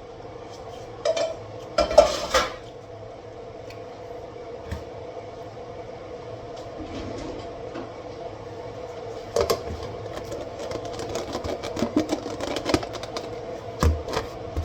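Dishes and cutlery clattering as they are handled: scattered knocks and clinks, a loud cluster about two seconds in and more toward the end, over a steady hum.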